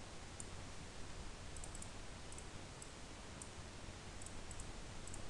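Faint, scattered clicks of a computer mouse, some in quick runs of two or three, over a steady microphone hiss and low hum.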